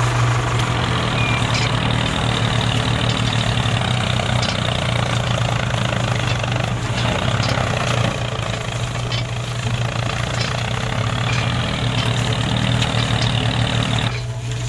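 A small electric motor running steadily, a low hum with a whirring hiss over it, cutting out near the end.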